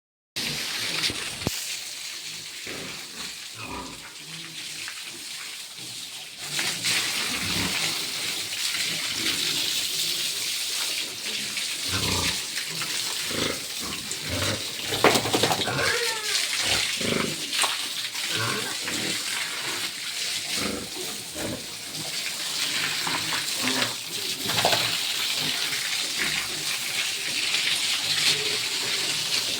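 Pigs grunting with an occasional squeal over a steady hiss of running water, which grows louder about six seconds in.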